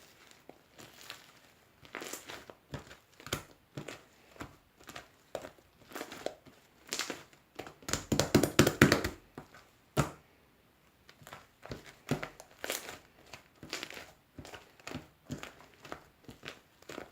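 Slime being squished and worked by hand, giving irregular sticky crackles and pops, with a denser, louder run of squishing about eight seconds in.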